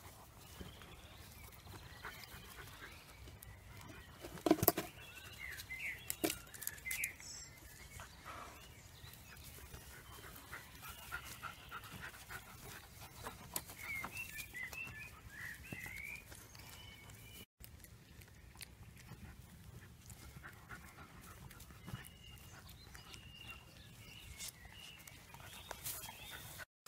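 Cavalier King Charles Spaniel puppies at play, giving short, faint high whimpers and squeaks now and then. A sharp knock about four and a half seconds in is the loudest sound, with a smaller one a second or so later.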